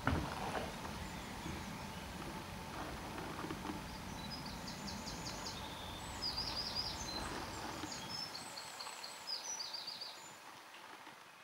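Outdoor ambience of steady background noise, with a small songbird singing phrases of quick, repeated high notes through the middle; a single thump right at the start, and the sound fades out near the end.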